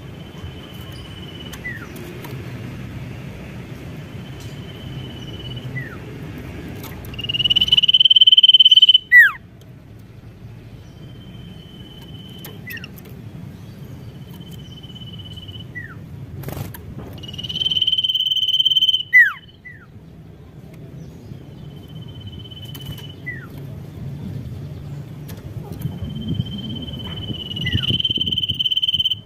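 Caged sirtu (cipoh, common iora) singing: long, steady, high whistled notes, each held a second or two and ending in a quick falling note. Three loud phrases come about nine seconds apart, with fainter whistles in between.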